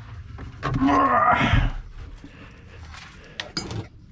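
A dog giving one short, bending vocal grumble about a second in, then a few light metallic clicks near the end.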